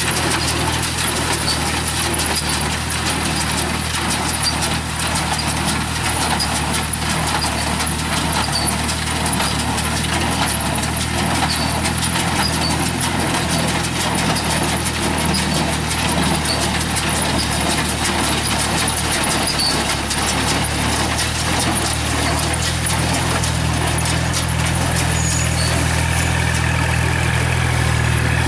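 Tractor engine running steadily while pulling a straw baler that is baling rice straw, the baler's mechanism making a dense, rapid clatter over the engine's drone. The engine grows louder over the last several seconds.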